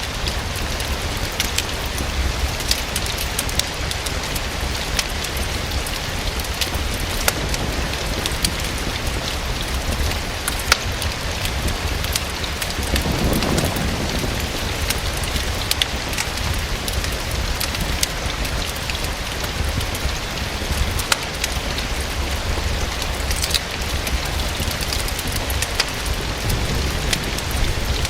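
Steady rain falling against a window, mixed with the crackle of a fireplace fire: scattered sharp pops over a constant patter and a low rumble. A brief low swell comes about halfway through.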